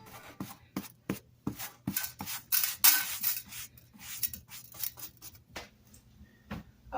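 Irregular rubbing and scraping with short sharp clicks: rusty metal tools being handled and scraped at the workbench.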